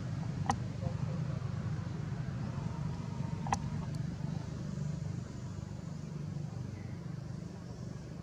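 Steady low hum of a running engine, with two sharp clicks, one about half a second in and one about three and a half seconds in.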